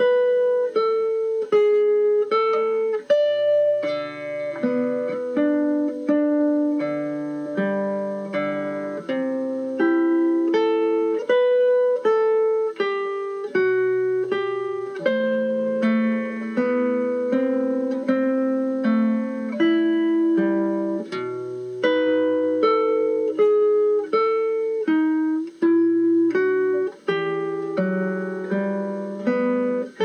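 Background music: a gentle instrumental melody of plucked notes, each ringing out and fading.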